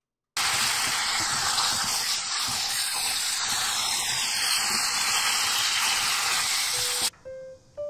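Sliced smoked duck sizzling in oil in a frying pan, a loud, steady sizzle. It cuts in just after the start and stops suddenly near the end, where a few notes of background music begin.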